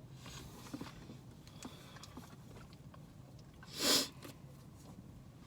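Car cabin road and engine rumble while driving, with a few faint clicks and one short, loud noisy burst about four seconds in.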